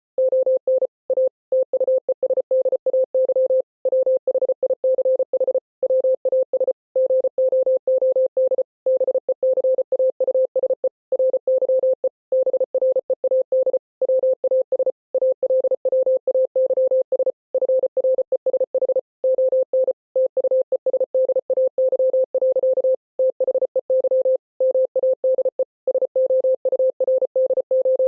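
Morse code played as a single mid-pitched beep tone keyed on and off rapidly: a fast run of dots and dashes, broken by slightly longer pauses every second or so.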